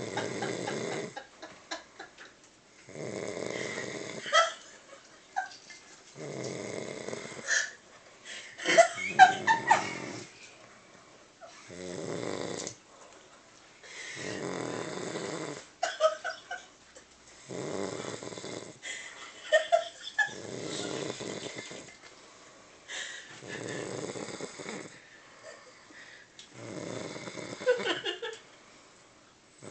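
A woman snoring in heavy sleep, a rasping snore on each breath, roughly every three seconds and each about a second long. The snoring is put down to her drinking.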